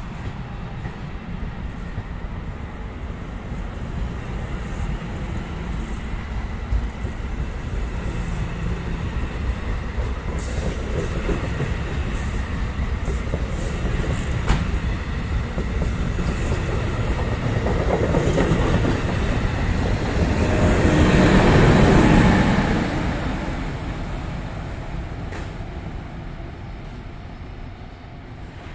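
NJ Transit commuter train passing, its rumble growing louder to a peak about twenty seconds in and then fading away, with sharp clicks along the way.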